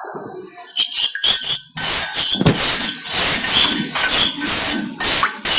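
Metal spoon stirring and scraping in a metal pan, a run of loud scraping strokes beginning about a second in, as honey is mixed into the ground-pepper and ghee paste of a pepper lehyam.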